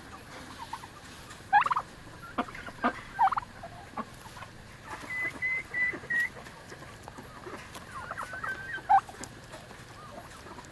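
Turkeys calling with short high-pitched notes, some sliding up or down, including a quick run of four even notes about halfway through, with scattered sharp taps.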